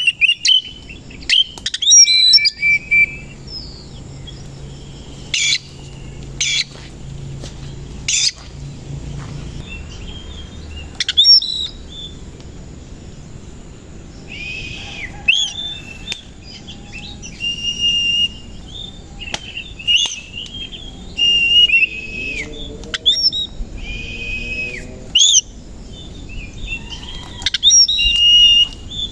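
Kacer koci (Oriental magpie-robin) singing: bursts of loud whistled notes and sharp sweeping calls, separated by short pauses.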